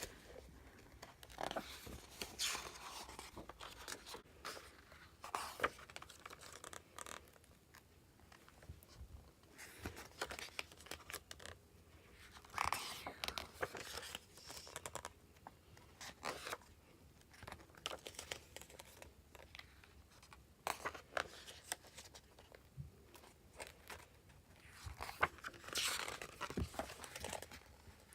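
Packaging being torn open and crinkled by hand, in irregular rustling bursts with sharp crackles.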